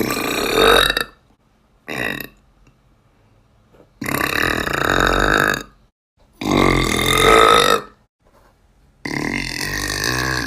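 A young woman burping loudly, five burps in a row with short silent gaps between them. Most are long and drawn out; the second, about two seconds in, is short.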